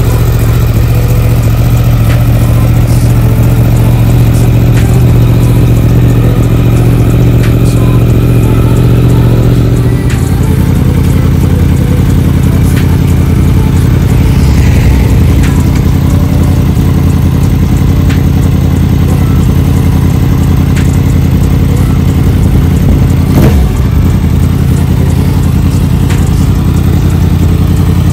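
2017 Yamaha YZF-R1's crossplane inline-four idling steadily through an Akrapovic exhaust after a cold start. The idle note drops slightly about ten seconds in, and a single short knock sounds near the end.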